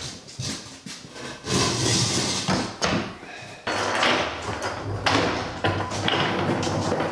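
Wooden CNC-enclosure base, a 2x4 frame with an OSB panel and casters, being flipped over: bumping and scraping of the lumber as it is tipped and set down, with a sharp knock a little before halfway.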